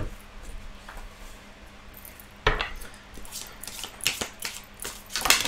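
A deck of tarot cards being handled and shuffled by hand: scattered sharp clicks, taps and rustles of the cards, the loudest about halfway through and a quick flurry near the end.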